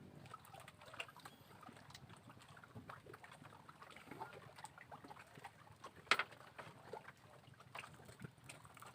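Faint water lapping, with scattered small clicks and knocks of handling and one sharp click about six seconds in.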